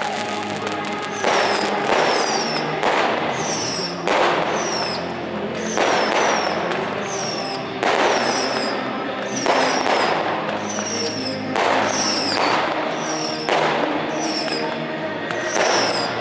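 Fireworks fired from a battery, going off again and again about once a second, with short high falling whistles after each shot, over background music.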